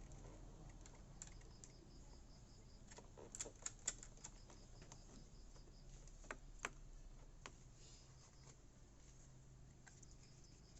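Scattered light clicks and taps of small hard parts being handled, with the loudest cluster about three to four seconds in and two more clicks a little past the middle, over a faint low hum.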